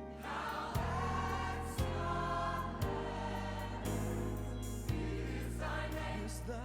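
Background music: voices singing long held notes over a slow beat of about one low thump a second.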